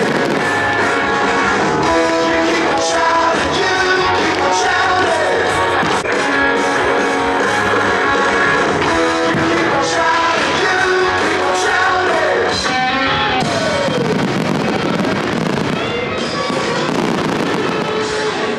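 Loud rock song with singing, played as the soundtrack to a fireworks show, with sharp bangs of fireworks cutting through the music.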